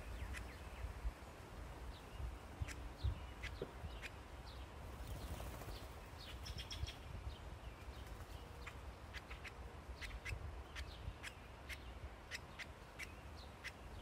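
Downy woodpecker pecking at a hanging wooden log feeder: irregular sharp taps that come more often in the second half. Faint short bird chirps about halfway through and a low rumble underneath.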